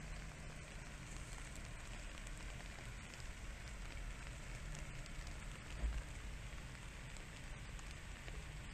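Soft, steady crackling and pattering in wet undergrowth over a low rumble on the microphone, with one dull thump about six seconds in.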